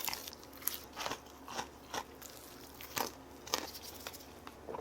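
Faint chewing: short, crunchy clicks coming irregularly, about eight over nearly five seconds.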